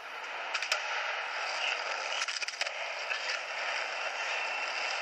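Skateboard wheels rolling on concrete, with a sharp clack of the board about a second in and a quick run of clacks about halfway through, played back through a camcorder's small speaker so it sounds thin and hissy with no low end.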